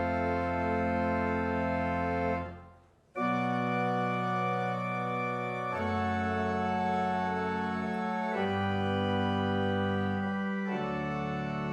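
Organ playing slow, held chords that change every two to three seconds, with a short break between chords about two and a half seconds in.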